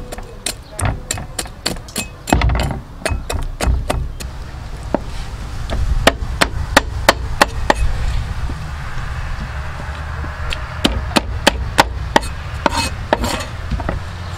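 Cleaver scraping the scales off a whole fish on a wooden chopping board: runs of quick, sharp scraping strokes and knocks against the board. A low steady rumble sits underneath in the second half.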